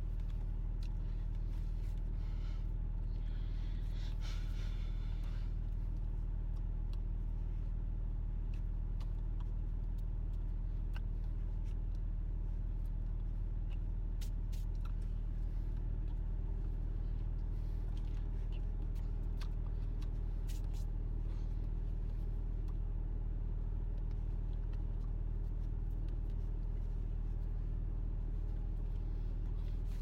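A 2002 Audi A6 (C5) driving: a steady low drone of engine and road noise, with a faint higher hum settling in about halfway through and a few light clicks.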